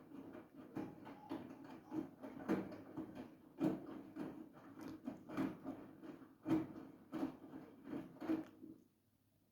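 Siemens iQ700 front-loading washing machine drum turning, with laundry tumbling and dropping in irregular soft thuds about once or twice a second, stopping suddenly near the end as the drum comes to rest.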